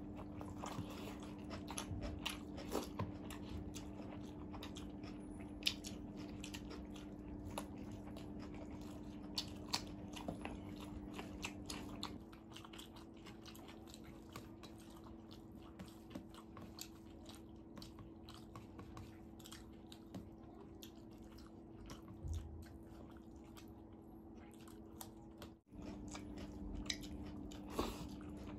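Close-up eating sounds: people chewing and crunching rice, crisp fried potato strips, battered fried eggplant and cucumber, with many small sharp clicks of bites. A steady low hum runs underneath; it shifts about twelve seconds in, and the sound cuts out for an instant near the end.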